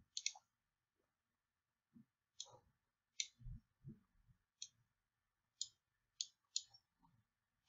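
Computer mouse button clicking, about seven short sharp clicks at irregular intervals, with a few faint low thumps between them; otherwise near silence.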